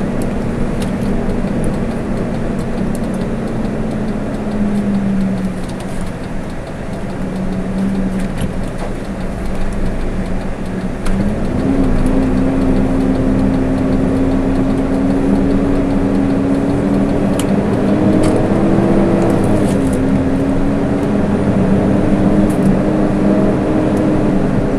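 Engine and road noise of a moving vehicle heard from inside its cab: a steady engine hum that falls a little about five seconds in, then jumps up near the middle as the vehicle accelerates and keeps climbing slowly, over a continuous rumble.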